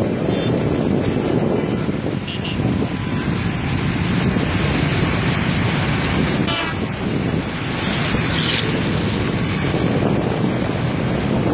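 Steady road traffic noise from riding along a road, with wind on the microphone.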